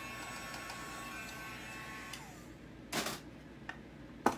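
Hair dryer running with a steady whine, switched off about two seconds in and winding down. A short rustle follows, then a sharp click near the end.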